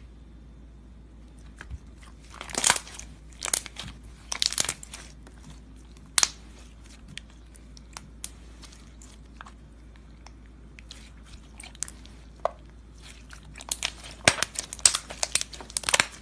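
Clear slime packed with round beads being squished and stretched by hand, giving clusters of sharp clicks and crackling pops: a run of them a few seconds in, then only scattered ticks, then a dense run near the end.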